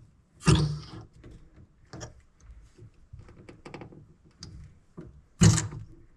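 Two loud knocks with lighter clicks and taps between, from handling under the sink as the new push-fit shut-off valves are turned to the on position.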